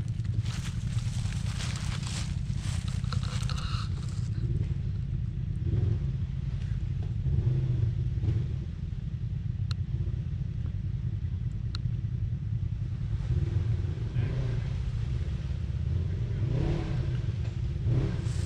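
Off-road vehicle engine running with a steady low rumble. Scraping and crackling noises come in over it for the first few seconds and again near the end.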